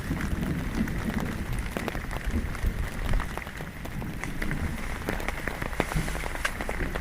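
Rain falling, with many separate drops ticking irregularly on a near surface over a steady hiss.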